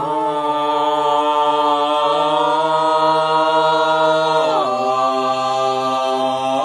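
Wordless a cappella voices holding long sustained notes over a steady low drone, like a chanted choir. The chord glides down about four and a half seconds in and steps back up near the end.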